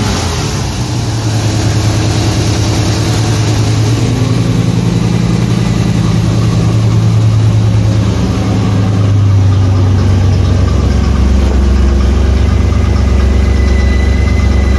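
1985 Camaro V8 idling steadily through its new exhaust. About ten seconds in, the note turns deeper as the exhaust end is reached.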